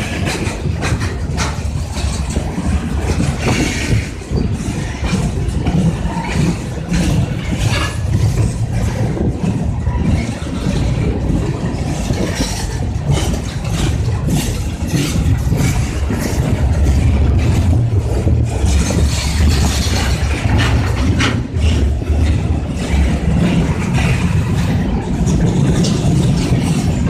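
Freight train passing close by: a steady low rumble of railcars with frequent clacks of wheels over the rails.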